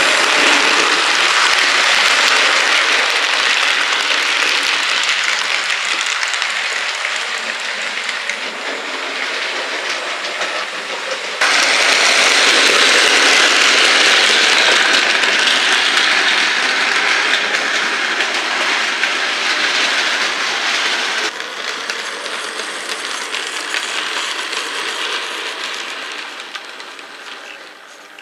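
OO gauge model trains running along the track: a steady rattling hiss of small metal wheels on rail. The level jumps up about a third of the way through, drops suddenly about two thirds through, and fades away near the end as the train passes off.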